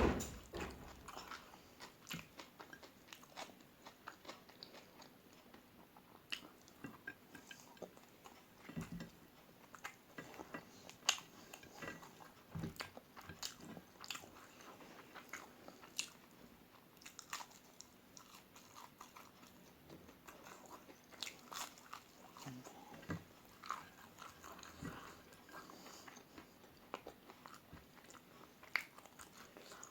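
Close-up chewing and biting of crispy fried omelette, with many short crunches and mouth clicks scattered throughout; the loudest is a sharp click right at the start.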